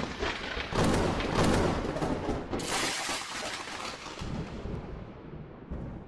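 Thunderclap sound effect: sharp crackling crashes, the loudest near the start, about a second in and near the middle, trailing off into a long fading rumble.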